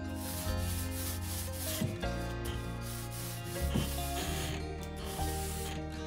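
A high-density foam roller rolling paint back and forth across a flat furniture top, giving a soft rubbing hiss. Background music with slowly changing chords plays underneath.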